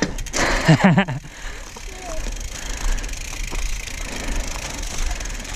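Mountain bike rolling along a trail: steady tyre and riding noise with wind rumble on the microphone. A loud burst with a brief shout-like voice comes in the first second.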